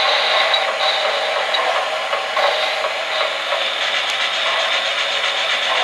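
Three-rail O-gauge model trains running on the layout track: a steady rushing hiss of wheels and motors with light mechanical clatter, and a quick run of faint ticks about four seconds in.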